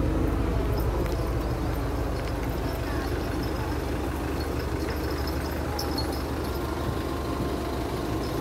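Hyundai County minibus engine idling with a steady low rumble while the bus stands with its door open.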